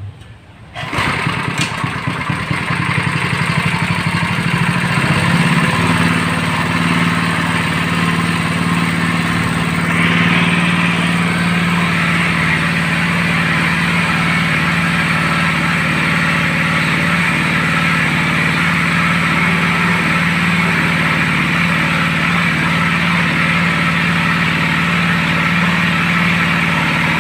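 Engine-driven pump on a well-drilling rig starting up about a second in and running steadily under test. About ten seconds in a hiss joins it as the water gushes out very hard.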